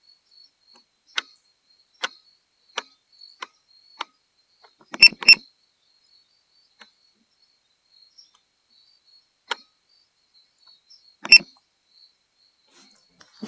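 A series of sharp, separate clicks, about one a second at first, then a loud double click about five seconds in and two more spread over the rest. A faint steady high-pitched tone runs underneath.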